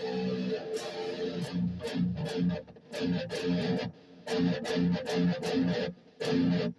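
Seven-string Schecter Damien Elite 7 electric guitar with EMG active pickups running on 24 volts, played through an amp: a rhythmic riff of picked notes and chords that stops short several times, about three seconds in, again near four seconds and near six.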